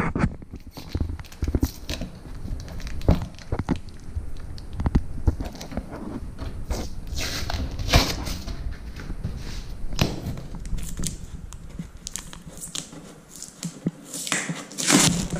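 Packing tape being peeled and ripped off a cardboard box in irregular crackling tears, with rustles and knocks from handling the box; the loudest rips come about halfway through and near the end.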